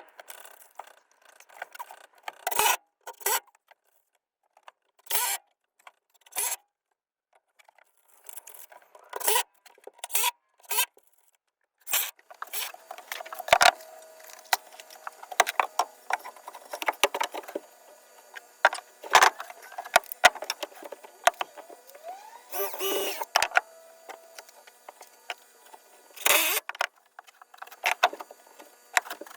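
Irregular knocks, clicks and scrapes, with short pauses early on and denser handling noise later.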